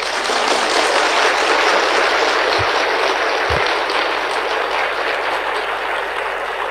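Large audience applauding: dense, steady clapping that starts abruptly and eases off slightly near the end.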